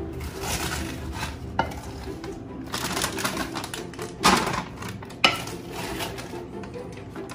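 Wooden spoon stirring and scooping sticky chocolate-and-peanut-butter-coated rice Chex cereal in a bowl: irregular scraping and rustling, with two sharp knocks of the spoon against the bowl.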